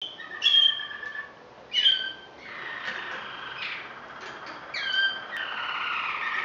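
Malinois waterslager canaries singing: short phrases of clear notes, several sliding down in pitch, then a steady, unbroken song line from about five seconds in.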